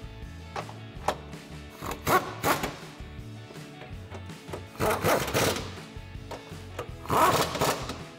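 Hand ratchet clicking in several short bursts as the strut top-mount nuts are tightened, the longest bursts about halfway through and near the end, over background music.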